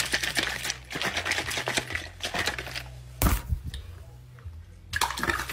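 Plastic sports-drink bottle shaken hard: its contents rattle and slosh in a rapid run of strokes for about three seconds. Then comes a sudden loud burst, with another short burst near the end.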